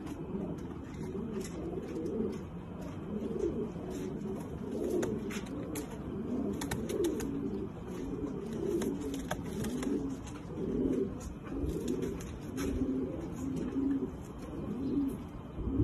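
Domestic pigeons cooing, a low rolling coo repeated over and over, with a few faint clicks.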